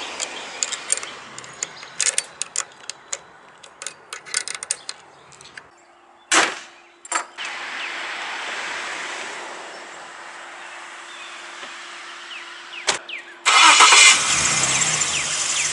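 Scattered small clicks and taps, then a sharp click and a steady hum for several seconds. Near the end a Jeep's engine, turned by a newly fitted starter, cranks and catches and keeps running loudly.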